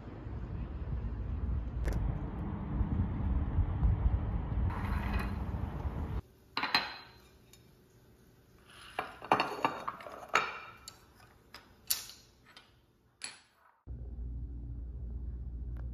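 Outdoor rumble of wind on the microphone for about six seconds. It cuts to a quiet room where cutlery clinks and taps against bowls and an earthenware pot a dozen or so times. Near the end it cuts again to a steady low room hum.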